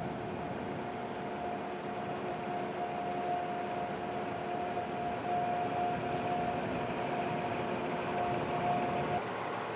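A vehicle running steadily, with a constant whine over the engine and road noise. The whine stops and the sound changes abruptly about nine seconds in.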